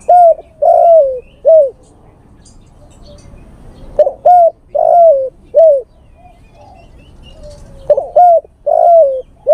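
Male spotted dove (tekukur) cooing its call to a female. Three phrases start about four seconds apart, each of two short falling coos, one longer drawn-out coo and a last short one.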